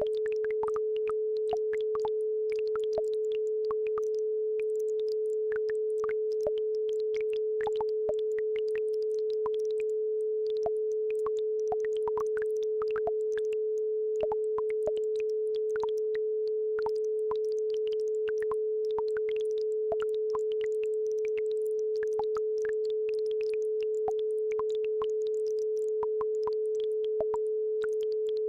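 A steady pure tone at about 432 Hz, the base frequency of an isochronic-tone track, runs unbroken and is by far the loudest sound. Faint, scattered little ticks and splashes of a babbling brook lie beneath it.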